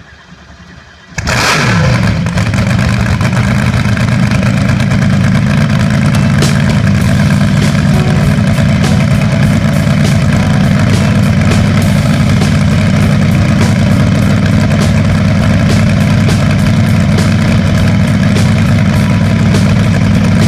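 Supercharged gasoline engine of a 1977 Hondo V-drive hot boat starting about a second in on its first fire, then running loud and steady.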